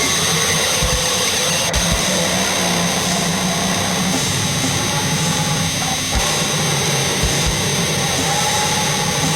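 Harsh noise music: a loud, unbroken wall of distorted static filling the whole range, with a few short deep thumps underneath.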